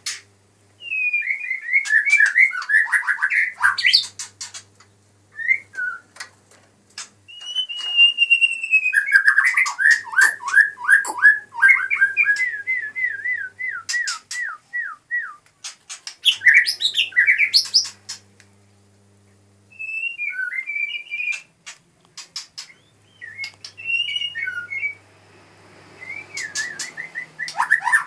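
White-rumped shama (murai batu) singing: phrases of rapid, varied whistled notes, including long runs of quick falling notes, separated by short pauses, with sharp clicks between phrases.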